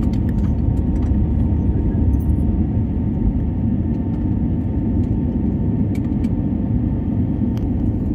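Steady, loud low rumble of an airliner's engines and rushing air heard inside the cabin during the climb just after takeoff, with a faint thin steady tone over it.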